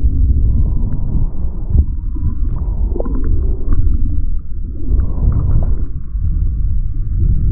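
Rush of whitewater and wind against a board-mounted camera while riding a breaking wave: a loud, muffled low rumble with short splashes here and there.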